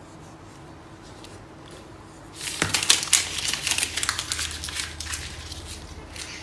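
A wrapper being torn open and crinkled in the hands. It starts sharply about two and a half seconds in, then a fast run of crackles fades over the next few seconds.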